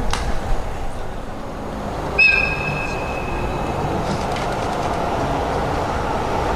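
Train rolling past: a steady rumble of wheels on rail with a few faint clicks, and a sudden high-pitched squeal about two seconds in that fades over a second and a half.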